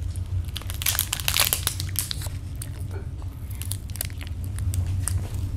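Plastic granola bar wrapper crinkling and tearing open, densest about a second in, followed by scattered crinkles and a bite into the soft, chewy chocolate chip granola bar. A steady low hum runs underneath.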